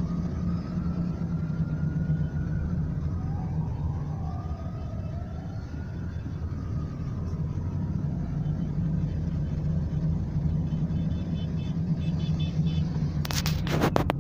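Steady low road rumble of a car heard from inside while driving. A faint siren wails up and down twice in the first half, and a burst of sharp crackling knocks hits the microphone near the end.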